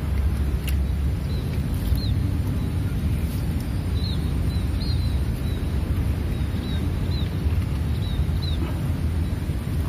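Wind buffeting the microphone as a steady low rumble. Over it a small bird gives short high chirps, one or two a second through most of the stretch.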